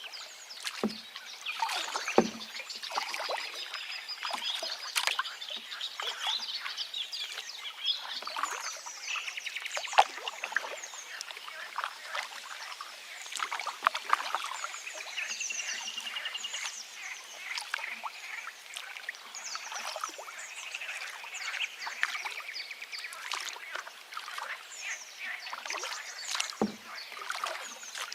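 River water running and splashing, with songbirds calling and trilling over it; one bird gives a rapid trill about halfway through.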